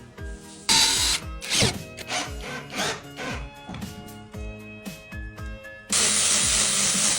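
Background music, with two short bursts of power-tool noise about a second in. About six seconds in, a power sander starts running steadily on a wooden board.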